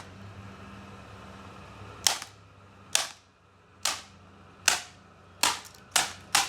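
A hammer striking a laptop, about seven sharp blows that come roughly a second apart at first and quicken near the end.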